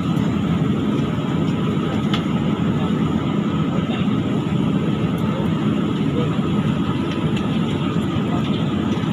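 Airliner cabin noise: a steady low rumble of engines and airflow, with a faint steady hum above it and a few light clicks.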